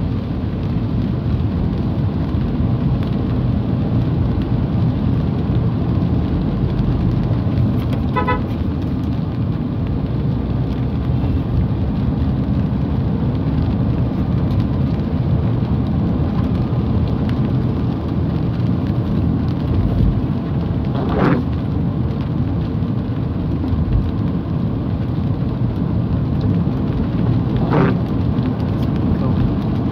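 Steady low rumble of a car driving on a wet road in light rain, heard from inside the cabin: road and tyre noise with rain on the car. A short horn toot sounds about eight seconds in, and two brief knocks come later.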